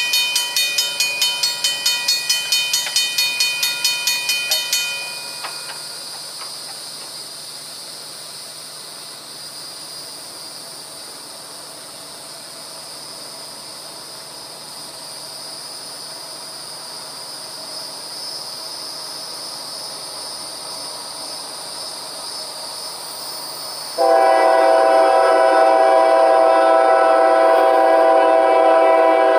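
Grade-crossing warning bell ringing in an even repeating rhythm as the gates lower, stopping about five seconds in once the gates are down. After a quieter stretch of steady high-pitched background noise, the approaching Norfolk Southern freight locomotive's multi-chime air horn sounds loud and long near the end.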